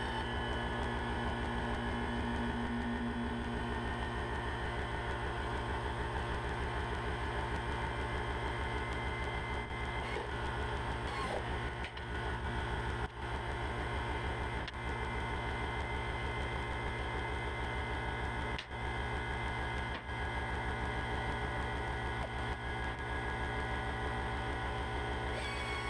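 Steady mechanical hum, with a few faint clicks.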